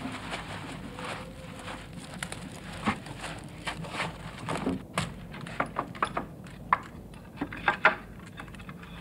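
Irregular clicks, knocks and rustling of people moving about and handling things, a few sharper knocks near the end, over a low steady hum.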